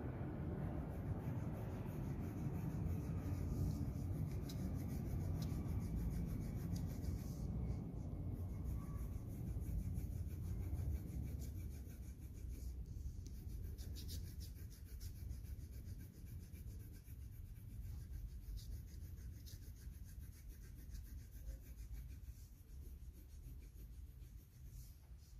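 Coloured pencil rubbing and scratching on paper in quick, repeated shading strokes, over a low rumble of hand and table handling that fades about halfway through.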